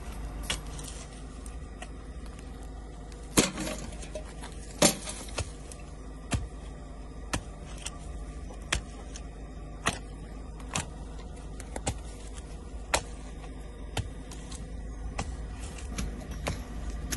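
Wooden board knocking and scraping against soil and concrete in the gap under a slab: sharp taps about once a second, over a low steady rumble.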